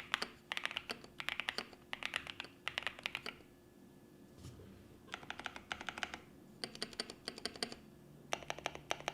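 Typing on a CMM Studio Isabell60 mechanical keyboard with JWK Carol switches in an aluminium plate: quick runs of keystrokes in short bursts, with a pause of about a second and a half a little before the middle.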